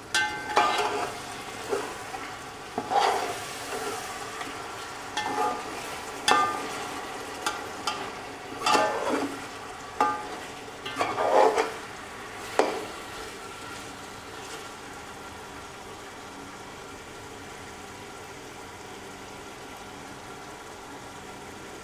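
A steel ladle stirring and scraping chicken masala in a metal cooking pot, with clinks against the pot's side, over a steady sizzle of frying. The masala is being fried down (bhuna) with a splash of water so it does not catch on the bottom. The stirring stops a little past halfway, and the sizzle goes on.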